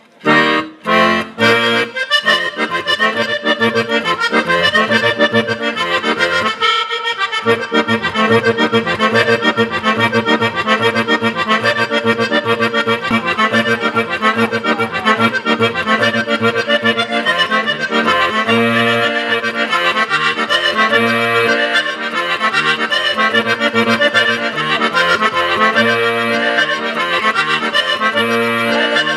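Sardinian organetto (diatonic button accordion) playing a traditional folk-dance tune: a few short opening chords, a brief break about seven seconds in, then a continuous tune over an even, pulsing bass.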